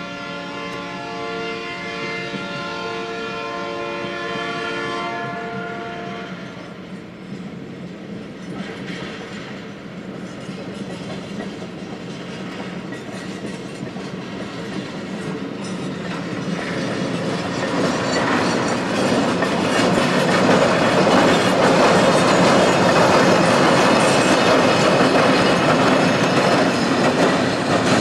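Heavy molten-iron bottle cars (torpedo cars, four trucks each) rolling slowly across a grade crossing, their wheels clacking over the rail joints, growing louder as the cars draw near. For the first five seconds or so, a warning tone sounds in short repeated pulses.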